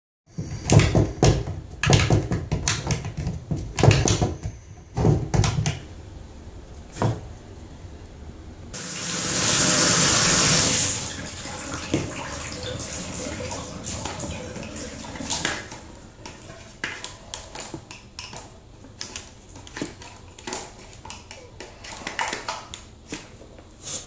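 A screwdriver scraping and knocking against the plastic housing of a condensate pump as sludge is cleaned out of it, with water running in a tub. About nine seconds in, a loud rush of water lasts about two seconds, and the scattered knocks and scraping go on after it.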